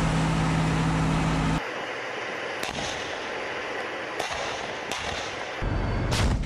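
Steady hum of a tank's engine, then tank main guns firing: sharp shots about two and a half, four and five seconds in, and a louder blast near the end that rumbles on.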